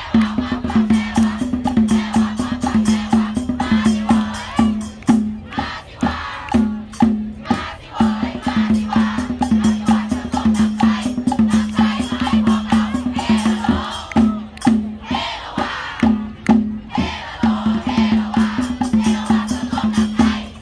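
Loud upbeat dance music with a steady, repeating beat and shaker-like rattles, with voices singing along.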